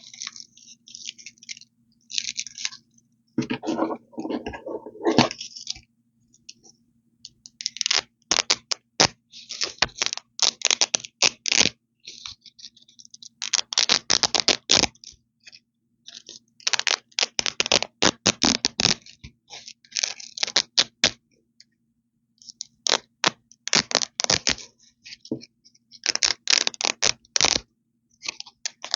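Velcro (hook-and-loop fastener) being ripped apart close to the microphone: a series of crunchy, crackly rips, each lasting a second or two, with short pauses between them.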